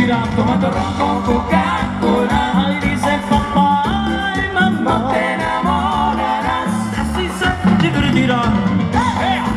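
Live Latin dance band playing an instrumental passage, with a wavering melodic lead over a steady bass line.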